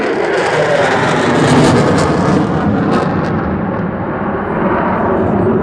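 F-16 fighter jet engine roar just after a close pass, with a ragged crackle through the first three seconds or so. After that the high end fades as the jet climbs away.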